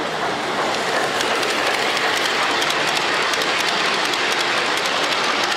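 G-scale model freight train of coal hoppers rolling past close by, its metal wheels clicking rapidly over the rail joints, over a steady hum of hall noise.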